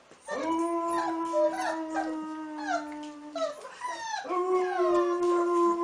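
A dog howling in two long howls. The first lasts about three seconds and the second begins about four seconds in. Each holds a steady pitch, with higher tones wavering and sliding down over it.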